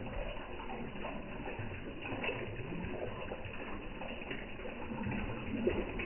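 Koi feeding at the pond surface, with irregular water slurps and small splashes as they gulp floating pellets.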